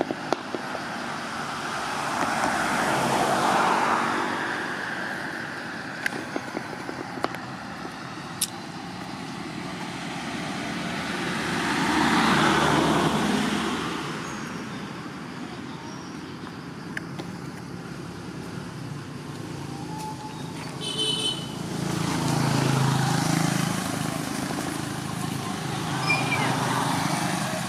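Road traffic: vehicles passing one after another, each swelling up and fading away over a few seconds, three times, with a few light clicks in between.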